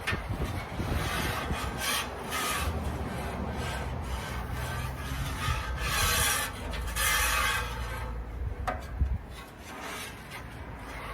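A cast iron grill grate being scrubbed with a cleaning tool: a series of irregular rasping strokes, the longest and loudest about six and seven seconds in.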